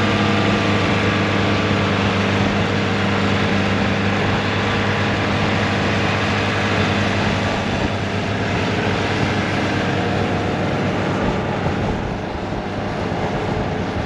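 Rollback recovery truck's engine running steadily as the truck is winched forward through soft sand, with its rear wheels in deep ruts. The drone eases slightly near the end.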